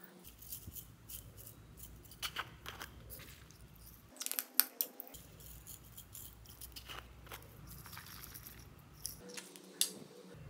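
Small plastic glitter vials being handled and shaken over slime in a glass dish: a series of irregular sharp clicks and taps, the loudest about halfway through and another near the end.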